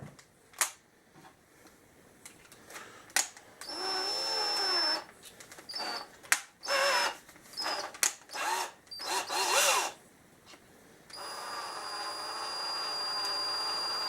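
Sears Craftsman 13.2-volt cordless drill's motor running under the trigger. A couple of sharp clicks come first. Then it runs for about a second with the speed dipping and rising, gives a string of short trigger bursts, and near the end makes a steadier run of about three seconds.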